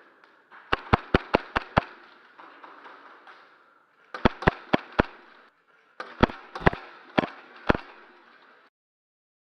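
Gas blowback airsoft pistol firing in three rapid strings of sharp cracks: about six shots in a second, then five, then about six more spread over a second and a half. The sound cuts off suddenly near the end.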